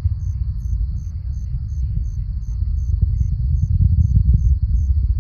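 Falcon 9 rocket engines heard as a deep rumble with crackling, growing louder about three seconds in. Crickets chirp about three times a second over a steady high insect drone.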